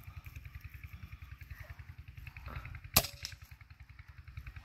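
A single sharp shot from a QS Air Arms MK3 air rifle about three seconds in, with a brief ring after it. Under it runs a low, evenly pulsing throb.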